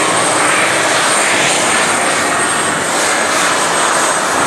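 Modified pulling tractor's engine at full throttle under load, dragging a weight-transfer sled. It runs loud and unbroken, with a thin steady high whine over it.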